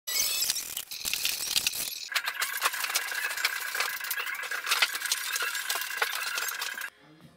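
Continuous metallic clattering and rattling from a Bosch Reaxx table saw on its wheeled folding stand as it is handled, with many clicks and knocks and a steady high tone through the second half. It stops abruptly near the end.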